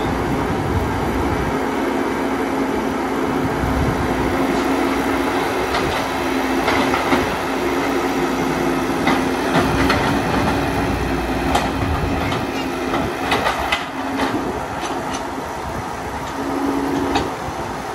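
Caterpillar 312 hydraulic excavator's diesel engine and hydraulic pump running under load while digging soil, a steady drone with a held hum. Sharp metallic clanks and knocks from the bucket and boom linkage come through the middle, while the arm works the dirt.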